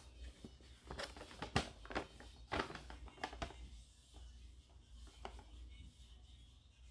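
Sheets of paper being handled and rustled, a scatter of short crackles and taps, busiest in the first few seconds and sparser after.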